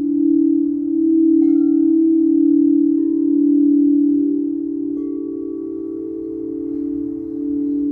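Singing bowls ringing: a steady, wavering hum, with light strikes adding higher ringing tones about one and a half, three and five seconds in.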